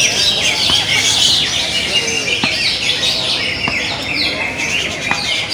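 Several green leafbirds (cucak ijo) singing at once in a song contest, a dense, unbroken stream of overlapping rapid chirps and short falling whistles.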